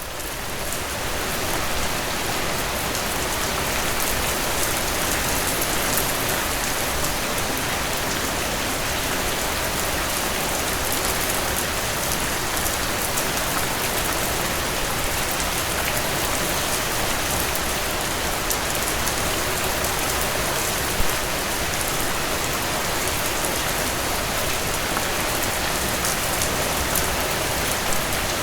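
Steady rain falling on a hard surface: a dense, even hiss of water with scattered sharper drop ticks, fading in over the first couple of seconds and then holding steady.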